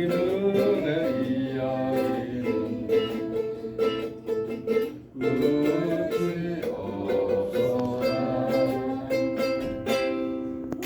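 Background music led by a strummed ukulele or guitar.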